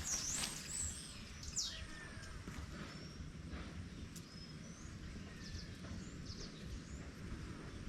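Birds calling in short chirps and whistles, several of them loudest in the first two seconds, over a steady low rushing background.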